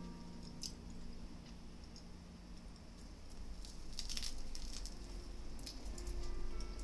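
Soft background music with sparse held notes, overlaid with scattered crisp clicks and a louder crackly cluster about four seconds in.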